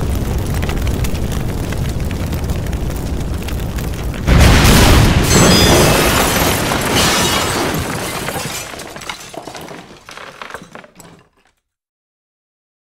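Cinematic logo-reveal sound effect: a steady noisy rush, then a sudden loud boom about four seconds in that dies away over several seconds with a few crackles, ending in silence near the end.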